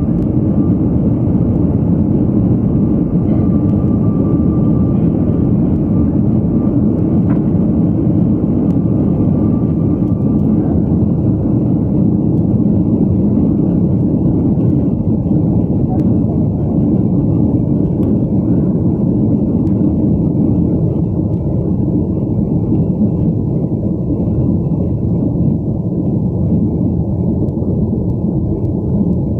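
Steady low engine rumble heard from inside a vehicle, even throughout, with a faint thin high tone in about the first ten seconds.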